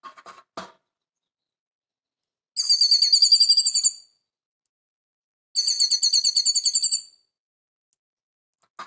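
Grey-headed goldfinch singing two short trilled phrases of fast repeated high notes, each about a second and a half long and about three seconds apart. A few short soft knocks come just before the first phrase and one more near the end.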